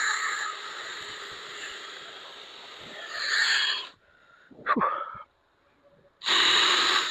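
Steady scrubbing hiss of a headlight lens being polished hard with compound, swelling and easing with the strokes. It cuts out suddenly at about four seconds, with one short sound in the gap, and comes back loud near the end.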